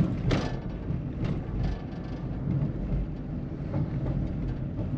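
Steady low rumble of road and engine noise inside a moving Nissan Almera's cabin, with a short louder burst of sound just after the start.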